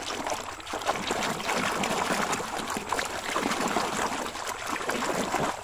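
Shallow muddy water splashing and sloshing without a break as a hand scrubs a plastic toy train under the surface.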